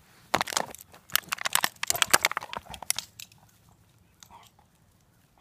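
Doberman scrabbling at and grabbing a plastic ball on dry grass: a rapid, dense run of crunching and clicking for about three seconds, trailing off to a few faint clicks as the dog runs off with the ball.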